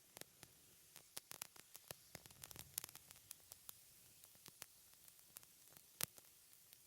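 Lit candle burning, its wick crackling: irregular small ticks and pops over a faint steady hiss, with one louder pop about six seconds in.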